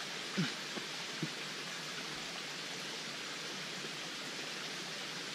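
Steady, even hiss of outdoor background noise, with two faint short knocks about half a second and a second and a quarter in.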